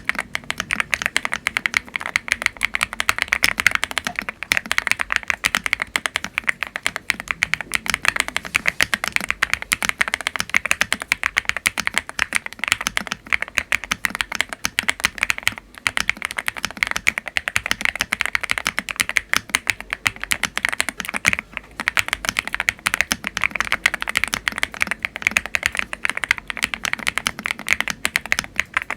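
Continuous fast typing on a GMK70 split mechanical keyboard with Akko Stellar Rose switches and EAO-profile keycaps: a dense stream of keystroke clacks with a few brief pauses.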